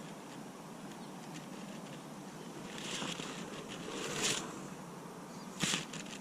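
Steady outdoor background noise with a few short rustling swishes: one about halfway through, a louder one around two thirds in, and a sharp one near the end.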